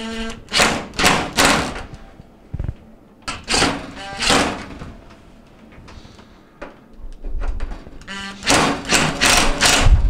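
A handheld power screwdriver whirring in four short bursts, driving in the screws that hold the oven's control console.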